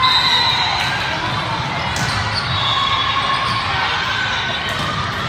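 Indoor volleyball play: sharp ball hits and short high squeaks over a steady murmur of voices from a busy gym.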